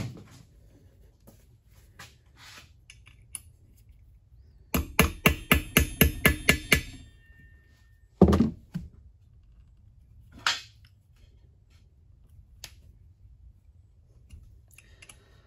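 Metal hand-tool noises from an Allen key being worked against a stuck screw on an electric scooter's hub-motor wheel: a quick run of about ten sharp metallic clicks and taps a little past the middle, then a heavy thunk and, a couple of seconds later, a second knock.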